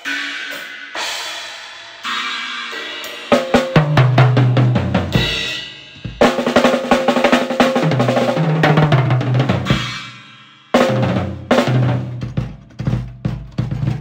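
Acoustic drum kit being played. Crash cymbals are struck and left to ring for the first few seconds, then fast playing on the bass drum, snare and toms begins, broken twice by brief pauses in which the cymbals ring out.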